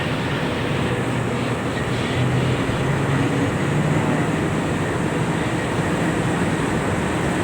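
A tugboat's twin main engines running under way, heard on board as a steady, loud mechanical drone with a low hum that grows a little stronger about two seconds in.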